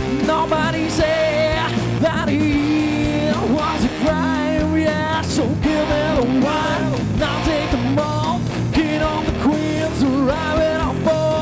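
Live heavy-funk rock band playing, with a drum kit under a wavering, bending melodic line, a lead voice or guitar, between the sung lines of the song.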